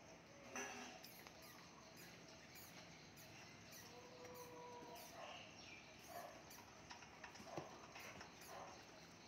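Faint rustling and scratching of dwarf hamsters moving about in wood-shaving bedding and a bowl of seed mix, with scattered small clicks.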